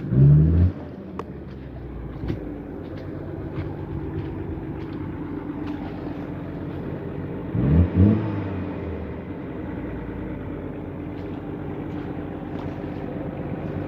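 Off-road 4x4's engine running steadily, revved hard twice: briefly right at the start and again about eight seconds in, rising in pitch each time. Scattered light knocks sound over it.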